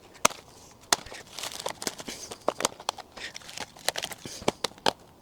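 Irregular sharp plastic clicks and knocks, a dozen or so, with some rustling between them, as interlocking plastic shed-base grid panels are laid and clipped together.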